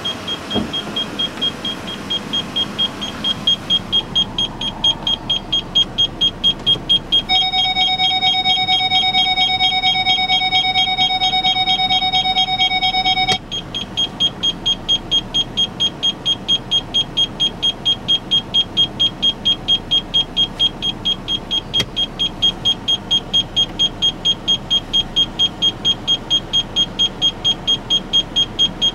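2013 Ford Explorer's interior warning chime beeping rapidly, about three times a second, over the 3.5-litre engine idling. From about seven seconds in, a steady tone of several pitches joins it for some six seconds and stops with a click.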